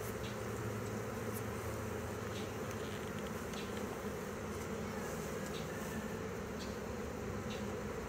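A honey bee swarm buzzing: a steady hum of many bees in flight, with faint scattered ticks through it.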